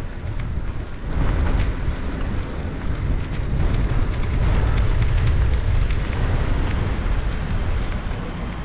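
Wind buffeting the microphone on a moving bicycle, a dense low rumble that rises and falls in gusts.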